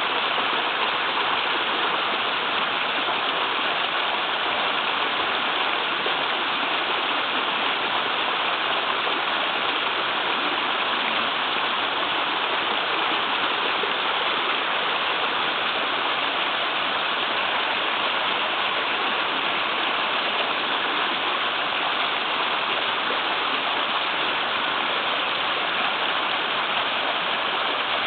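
Small waterfall in a river, water pouring and splashing swiftly in a steady, unbroken rush.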